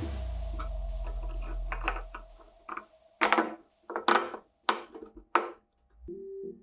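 Drill press motor spinning down after switching off, its hum falling in pitch over about two seconds, followed by a few sharp clacks.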